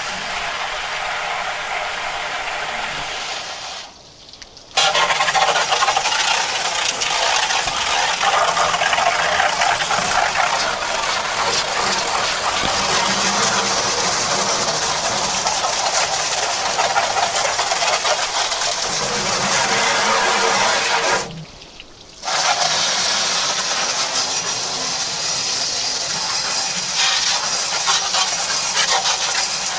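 Water spraying hard from a hose into a metal grill-smoker, rinsing out oven cleaner. The spray cuts off briefly twice, about four seconds in and again about twenty-one seconds in.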